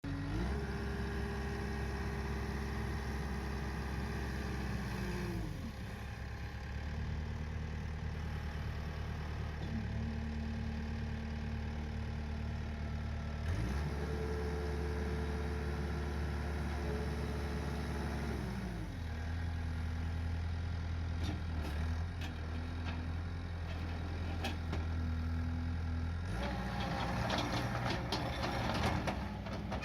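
Takeuchi TL230 compact track loader's diesel engine running, revved up to high throttle and back down to a lower speed twice. Near the end a clattering, clicking noise of the working machine joins in.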